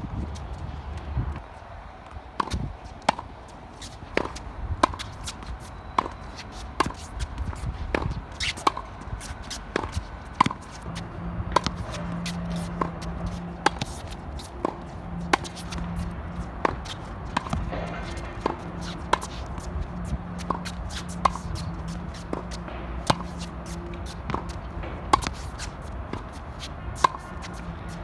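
Tennis balls struck by rackets in a quick rally at the net, a sharp hit well over once a second. A low hum comes and goes in the background from about halfway through.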